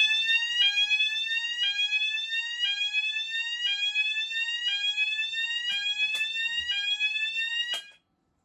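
Fulleon Roshni fire alarm sounders sounding a repeating rising sweep tone, about one sweep a second, and cutting off abruptly near the end. A few sharp clicks come in the last seconds.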